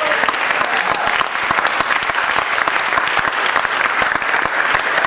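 Audience applauding, a dense, steady spatter of many hands clapping.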